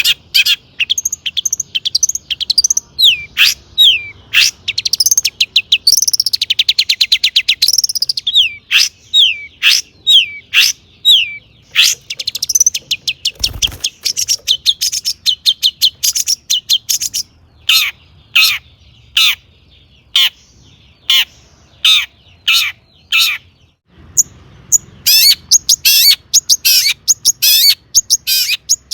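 Long-tailed shrike (cendet) in full song: loud, rapid strings of sharp chattering notes and quick rising and falling whistles, with a fast trill about six seconds in. The song is packed with mimicked calls of other birds.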